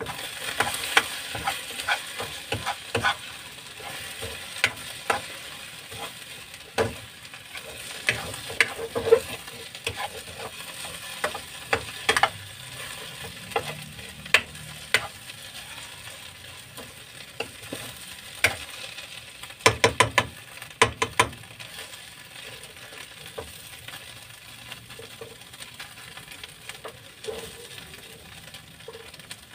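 Sardine mixture sizzling in a ceramic-coated frying pan on a gas burner while a metal spatula stirs and scrapes it, with frequent sharp taps of the spatula against the pan and a quick run of taps about two-thirds of the way through.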